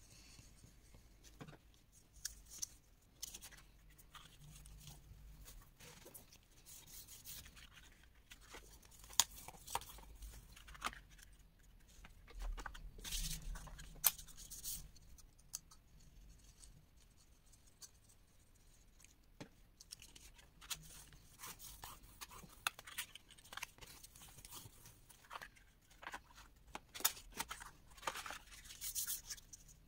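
Kraft card pieces being handled, slid and pressed flat on a cutting mat while glue is applied: light paper rustling with scattered small taps and clicks.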